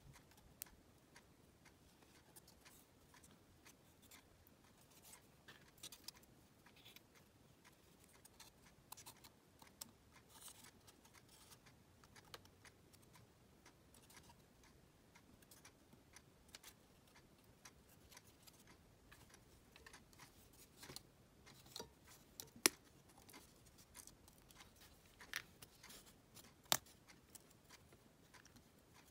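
Faint handling of thin laser-cut plywood puzzle parts: soft scratching with scattered light wooden clicks as ribs are slotted into the hub, and a few sharper clicks in the last third.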